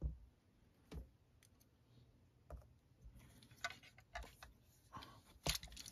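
Scattered clicks and knocks of hands working a plastic model locomotive truck and a screwdriver on a work mat. A busier run of small clicks starts about halfway in, and a sharper knock comes near the end.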